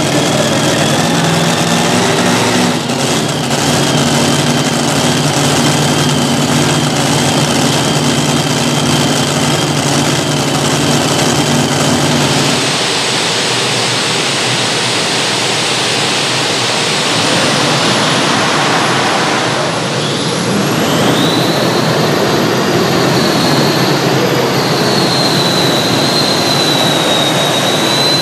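Light modified pulling tractor with several supercharged piston engines idling steadily. After about twelve seconds it gives way to a turbine-powered light modified tractor running with a loud rush and a high whine that rises in pitch as the turbines spool up.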